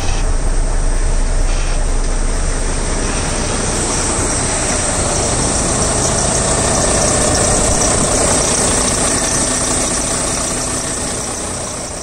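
Volvo D13 inline-six diesel running steadily at idle just after starting, fading out near the end. It is the sign that the truck's no-crank, no-start fault is cured by a replacement engine control module.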